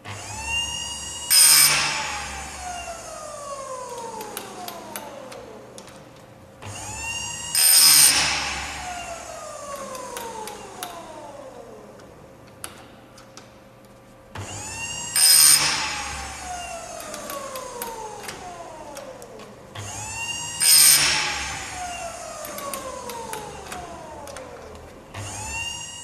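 Electric chain saw sharpener with a corundum grinding wheel, run through four sharpening cycles about six seconds apart. Each time the motor spins up with a rising whine, the wheel gives a short, loud grind against a chain tooth, and the whine then falls slowly as the wheel slows. A fifth start is cut short near the end.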